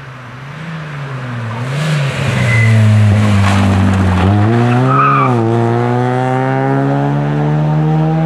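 Rally car's engine swelling as it comes through a bend, its note dipping and rising with the throttle while it slides and throws up gravel and dust, with short tyre squeals. Then the engine pulls hard away, its note climbing steadily.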